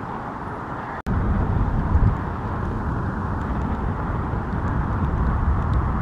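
Steady outdoor background noise: a low rumble with a hiss over it. It drops out abruptly for an instant about a second in, and the rumble is louder afterwards.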